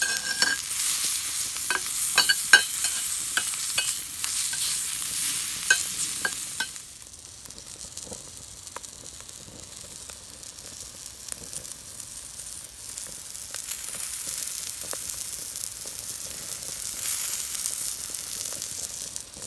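Sliced kielbasa sizzling in a hot cast iron skillet, with a run of sharp grease pops for the first several seconds, then a softer, steady sizzle.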